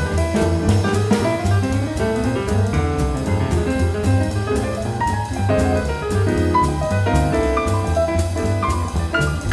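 Small jazz band playing live: a tenor saxophone plays the melody line over plucked double bass, piano and a drum kit keeping steady time on the cymbals.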